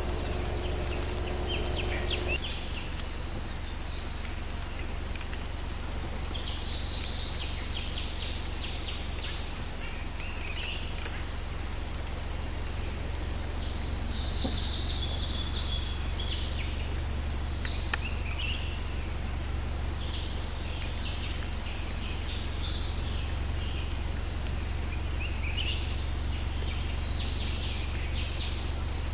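Forest ambience: a steady high drone of insects, with birds chirping on and off, over a constant low rumble. A low hum stops about two seconds in.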